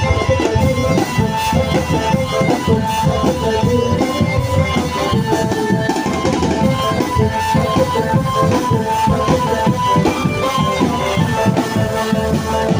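Drum band playing: fast, dense drumming under a repeating melodic line, steady throughout.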